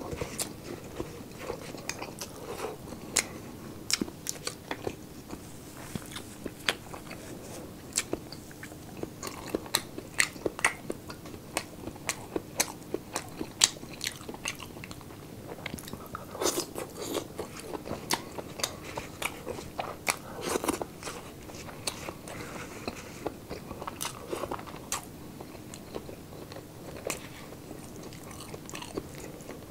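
Close-up chewing and crunching of crispy pork sisig made from pig ear and cheek, with frequent irregular sharp crunches and wet mouth clicks. A faint steady hum runs underneath.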